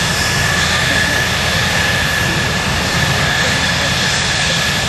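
JASDF F-4 Phantom II's twin J79 turbojet engines running at taxi power: a steady jet roar with a constant high whine.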